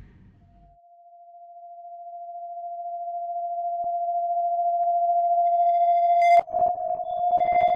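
A single steady electronic tone that swells slowly from faint to loud, with higher tones joining it near the end; about six and a half seconds in, a sharp click breaks in and crackling, glitchy noise follows.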